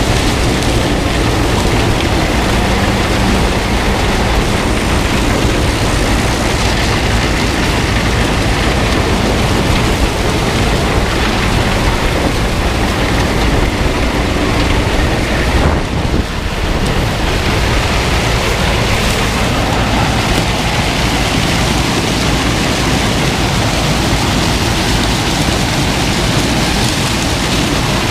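Combine harvester running steadily while harvesting corn: a constant dense rush with a low hum underneath, dipping briefly about halfway through.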